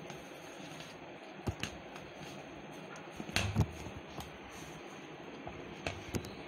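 Hand kneading soft, oiled maida dough in a plastic bowl: a few short, scattered wet squelches and slaps, the loudest cluster about three and a half seconds in, over faint steady background noise.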